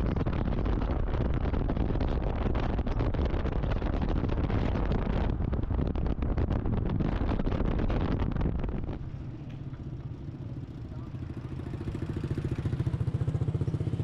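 Heavy rumbling noise like wind on the microphone for the first nine seconds or so, then it drops away. What is left is a vehicle engine running steadily, getting louder over the last few seconds.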